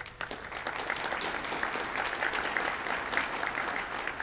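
Audience applauding, many hands clapping; it breaks out suddenly and begins to die down near the end.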